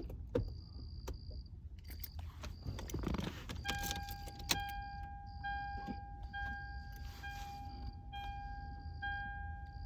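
Keys jangling and clicking as the car's ignition is switched on, then the car's electronic warning chime sounding a steady tone, broken by short gaps about once a second.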